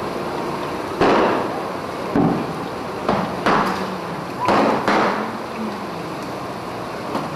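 A series of about six sharp bangs and crashes over some four seconds, each with a short smeared tail, at a burning building.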